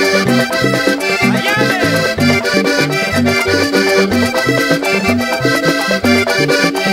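Instrumental vallenato passage led by a diatonic button accordion over a repeating bass line and steady percussion strokes.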